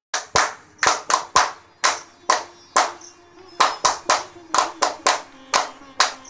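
Hand claps in a repeating rhythm, about three a second, over a faint held musical note; they start abruptly out of silence.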